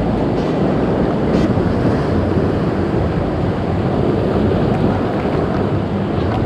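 Wind buffeting the microphone over the rush of sea surf, a steady loud noise that is strongest in the low range.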